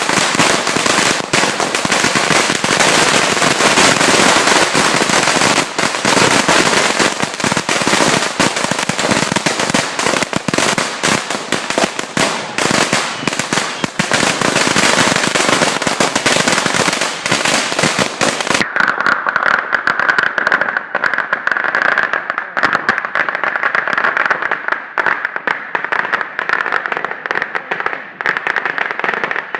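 A 100,000-shot firecracker string going off: an unbroken, rapid rattle of small bangs. It turns duller about two-thirds of the way through.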